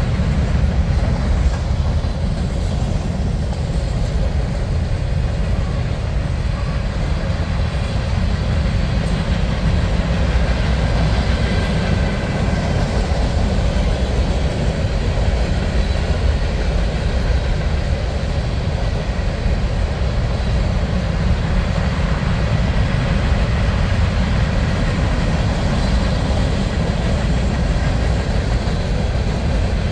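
Freight train rolling past: a steady rumble of steel wheels on rail as a long string of freight cars, mostly covered hoppers, goes by.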